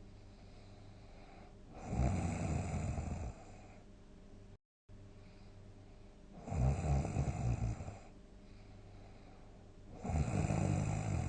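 A sleeping person snoring, repeated big snores: three long, rattling snores about four seconds apart, with quieter breathing in between.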